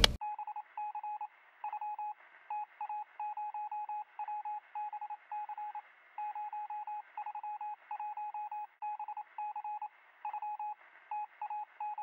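Electronic beeping at one steady pitch, keyed on and off in uneven groups of short and longer beeps like Morse code, sounding thin and radio-like. It is an added spy-transmission sound effect.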